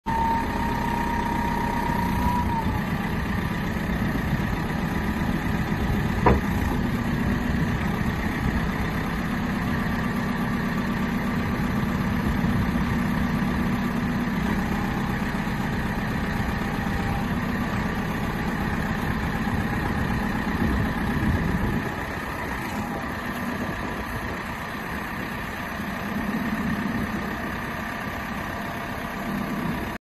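JCB 3CX backhoe loader's four-cylinder diesel engine running steadily, with one sharp click about six seconds in. The engine sound drops a little in level a bit past twenty seconds.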